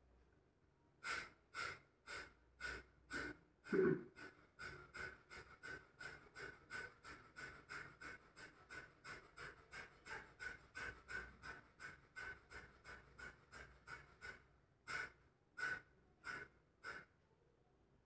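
Kapalbhati pranayama: short, forceful exhalations puffed out through the nose. The first few come slowly, about two a second, then a fast even run of about three a second lasts some ten seconds, then they slow again and stop.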